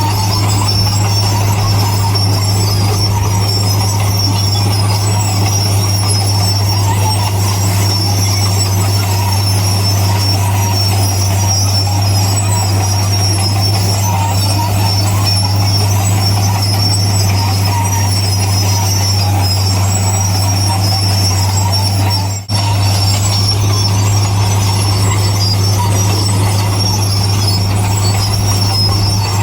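Bulldozer's diesel engine running steadily with a deep even hum and a high thin whine over it. The sound briefly drops out about two-thirds of the way through.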